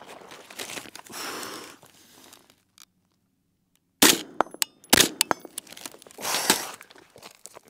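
Crunching and rustling on gravel as a shooter drops into the prone position, then two sharp shots from an AR-style semi-automatic rifle just under a second apart, about four seconds in. These are the two prone shots of a steel-plate drill.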